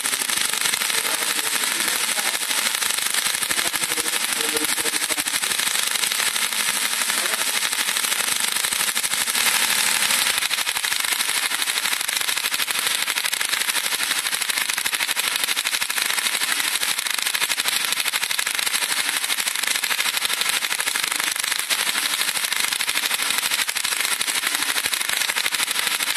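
Tesla coil throwing arcs off its toroid, a continuous dense, rapid crackling buzz of spark discharges that holds steady throughout, briefly a little louder a little before halfway.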